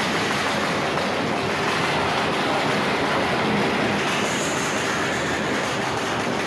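Modified racing motorcycle engines running loud and steady at close range, a dense exhaust drone with no let-up.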